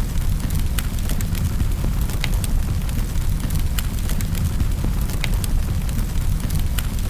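Wood fire in a fireplace crackling: irregular sharp pops and snaps over a steady low rumble of the flames.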